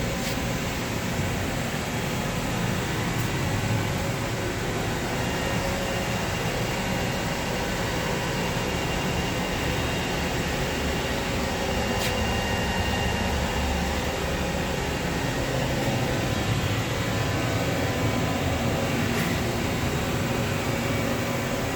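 Steady machinery hum and noise with a few faint high tones, broken by occasional light clicks.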